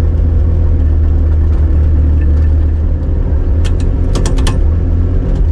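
Turbocharged GM Vortec 3500 inline five-cylinder engine running steadily at low revs, heard from inside the car's cabin. A quick run of sharp clicks comes about four seconds in.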